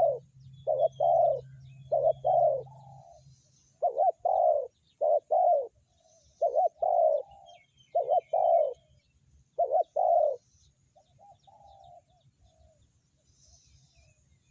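Spotted dove cooing: repeated phrases of short, paired coos, with a few fainter, drawn-out notes after about ten seconds.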